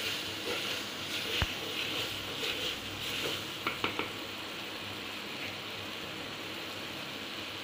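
Mushrooms sautéing in oil with onion and spices in a clay pot, a steady sizzle. A wooden spatula stirs and knocks against the pot a few times in the first half, then the stirring stops and the sizzle goes on alone.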